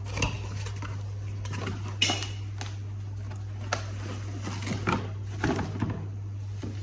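Scattered clicks, knocks and light clatter from an electric kettle and its parts being handled and set down, over a steady low hum.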